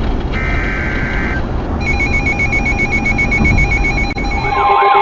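NOAA Weather Radio SAME header data burst, a roughly one-second electronic screech of two alternating high tones. About two seconds in, weather-alert radios start beeping their alarms, and near the end a steady high alert tone and a warbling alarm join in, marking the start of a special marine warning alert.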